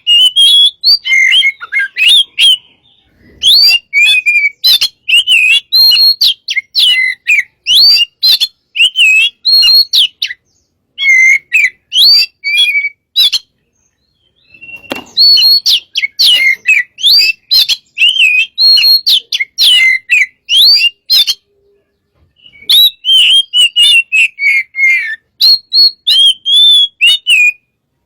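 Oriental magpie-robin (kacer) singing loudly: fast, varied runs of clear whistles, trills and chips, delivered in long phrases with short breaks about 3, 11, 14 and 22 seconds in.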